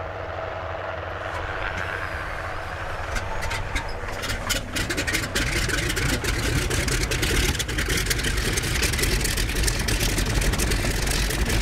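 Radial engines of Boeing Stearman biplanes being started. A few pops and coughs come about three to four seconds in, then an engine catches and runs with a rough, deep drone that grows louder.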